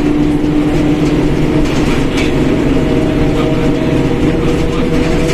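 Mercedes-Benz OF1721 BlueTEC 5 bus under way: engine drone with a steady gear whine from the differential, the whine shifting up a little in pitch about halfway through.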